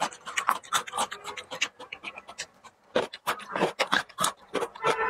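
Close-miked chewing, heard as a quick run of short crisp clicks and crackles, with a brief lull a little after two seconds in.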